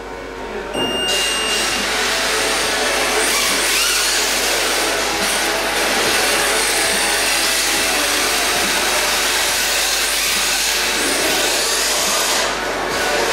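Electric RC drift cars running and drifting around the track at speed. A short steady beep sounds about a second in, just as the loud running sound builds.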